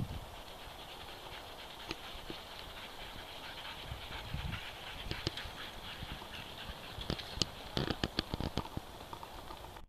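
A team of Siberian huskies in harness trotting on a dirt trail, pulling a three-wheeled dog rig: scattered crunches and clicks of paws and wheels on the ground over a faint steady hiss, growing into a cluster of sharper clicks and thumps near the end.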